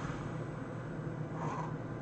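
A sleeping person's breathing between snores, with one short breath about one and a half seconds in, over a steady low hum.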